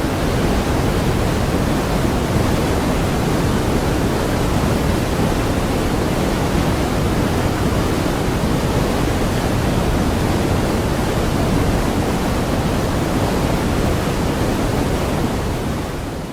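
Steady, even rush of falling water, fading out near the end.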